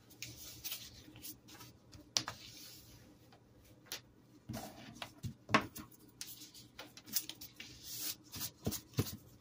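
Handling noise from plastic-gloved hands picking up snack packaging off a table: irregular rustling and crinkling of wrappers, with a few light knocks.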